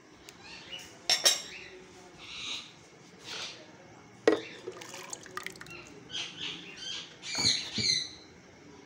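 Glass blender jar knocking against a bowl as a thick, wet paste of ground onion, tomato and yogurt is tipped and shaken out of it: a few sharp clinks, with soft wet slopping sounds in between.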